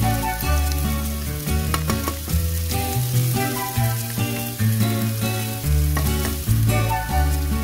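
Diced Spam and vegetables sizzling as they fry in a nonstick pan, with a spoon stirring them near the end, over background music with a bass line.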